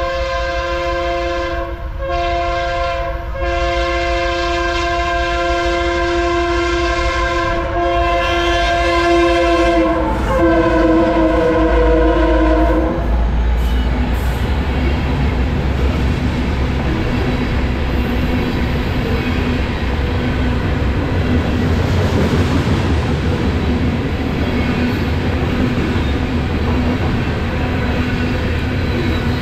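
Freight locomotive multi-chime air horn blowing long blasts, broken twice briefly in the first few seconds, its pitch dropping about ten seconds in as the locomotives pass, and cutting off a few seconds later. Then the steady rolling rumble of covered hopper cars passing at speed over the rails.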